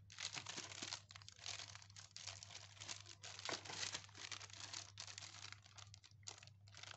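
Clear plastic bag holding a car stereo's wiring harness, plugs and manual, handled and crinkled in the hands: continuous irregular crinkling and crackling made of many small crackles.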